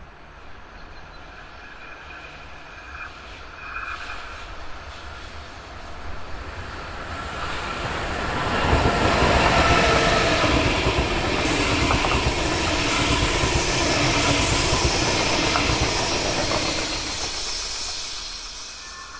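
Double-deck Intercity 2 train approaching and passing at speed, its wheels rumbling on the rails. The noise builds from about six seconds in, stays loud for about eight seconds with a high hiss joining as the coaches go by, and fades near the end.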